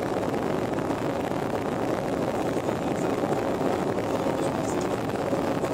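Steady roar of jet engines and rushing air heard from inside an airliner cabin during the descent to land.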